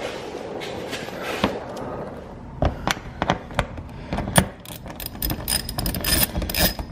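Small hand ratchet clicking in quick, irregular runs as it turns a bolt holding the plastic under-tray, after a few scattered knocks of tool and plastic.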